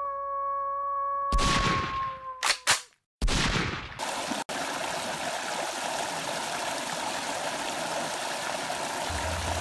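A held tone with loud rushes of noise and two sharp cracks in the first three seconds. Then, from about four seconds in, the steady rush of a small waterfall spilling over rocks into a pool.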